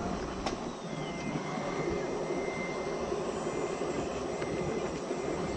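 Radio-controlled scale trucks and construction machines running: a steady engine-like drone, with a thin electric whine that glides down in pitch about a second in and then holds level for a few seconds.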